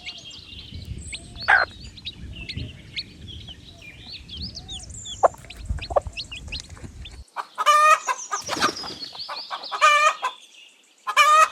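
Chicks peeping, many short high cheeps, over a low rumble. From about seven seconds in, three loud drawn-out chicken calls, clucks, stand out above the peeping.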